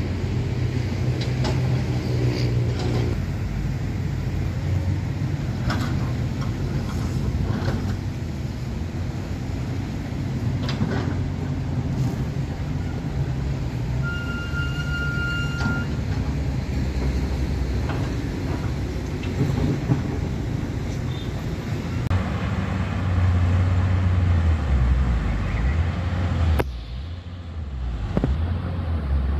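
Heavy diesel engines running steadily: first the dump truck's, then, after an abrupt break near the end, the Komatsu excavator's. Scattered knocks sound over the engine, and a short high tone comes about halfway.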